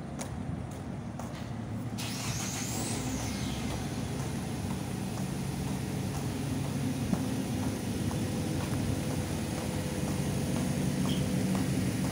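A motor vehicle engine running steadily with a low hum, slowly growing louder.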